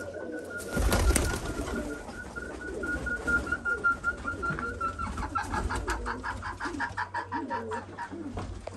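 Domestic pigeons cooing, low and wavering. A thin steady high note sounds over them for the first half, then gives way to a rapid run of high chirps, several a second.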